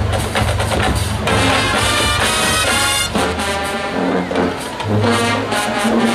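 Marching band playing: a drumline beats out a rhythm, and about a second in the brass section comes in with loud held chords over the drums.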